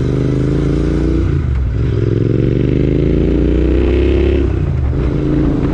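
Royal Enfield Interceptor 650's parallel-twin engine, fitted with an aftermarket AEW exhaust, accelerating through the gears. The engine note rises, drops at an upshift about a second and a half in, rises again and drops at another shift near the end.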